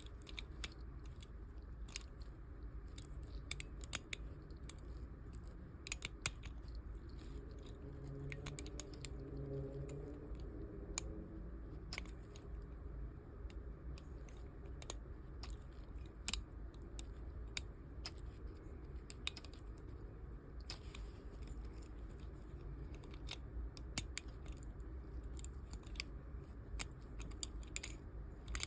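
Lock pick and tension wrench working inside the keyway of a plastic-bodied Master Lock 410 lockout padlock: faint scraping and sharp little clicks at irregular intervals as the pins are raked and set.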